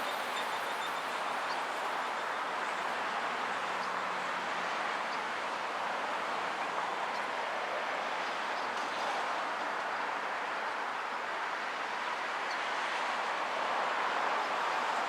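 Freight train cars rolling past on the rails: a steady, even rolling noise of steel wheels on track, with a few faint ticks.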